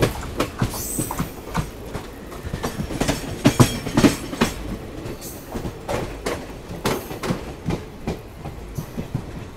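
Moving passenger train heard on board: a steady low rumble with many irregular clattering knocks as the coach wheels pass over rail joints.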